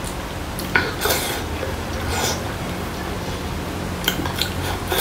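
Close-up eating sounds: chewing and mouth smacks, with a few sharp clicks of chopsticks on a plate, over a steady low hum.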